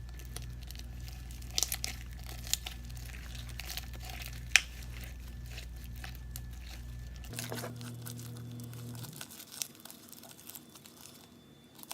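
A large batch of very sticky slime with foam beads being mixed and stretched by hand, giving scattered sticky crackles and clicks. A steady low hum underneath cuts off about seven seconds in.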